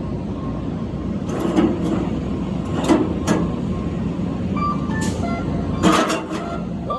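Semi-truck engine running steadily while the truck backs a container chassis into place, with a few sharp knocks. The loudest knock comes about six seconds in.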